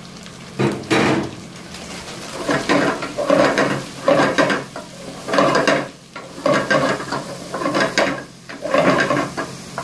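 Sliced onion, carrot, cabbage and capsicum frying in hot oil in a cooking pot, sizzling while a wooden spatula stirs and scrapes them, with a louder stirring stroke about once a second.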